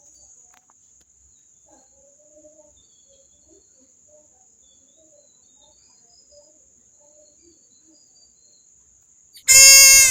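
Very faint background with a thin steady high hiss and scattered faint chirps. Then, near the end, a sudden, extremely loud, harsh pitched scream bursts in.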